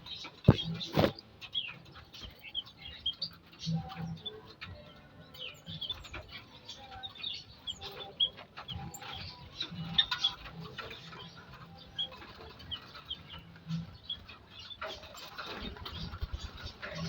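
Aviary birds chirping in many short, scattered notes, with a couple of sharp knocks near the start.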